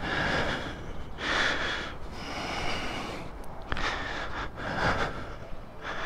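A person breathing close to a helmet-mounted microphone: hissy breaths coming about once a second, with a couple of light clicks about three and a half seconds in.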